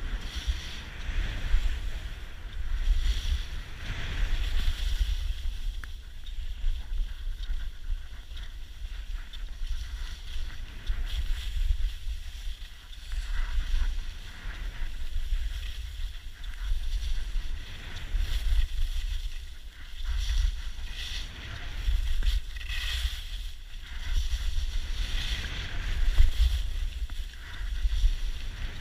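Skis hissing and scraping over groomed snow on a downhill run, swelling and fading about every two seconds with each turn, over a heavy rumble of wind buffeting the action camera's microphone.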